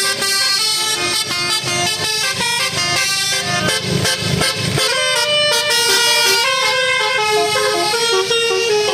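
Telolet basuri musical horn on an Indonesian truck or bus, playing a melody of held notes that step up and down in pitch.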